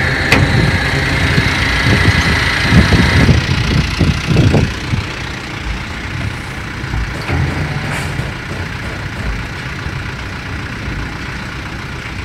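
Vehicle engine running at idle, a steady low hum, louder and busier for the first five seconds or so, then quieter.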